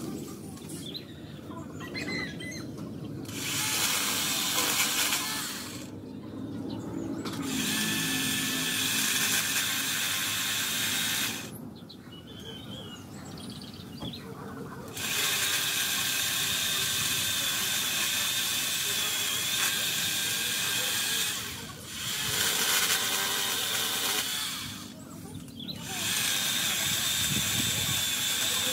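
Worx WG368E 40V cordless electric chainsaw cutting tree branches, running in spells of a few seconds with short pauses between them, a steady high whine over the motor noise. Its chain, the owner says, is no longer sharp.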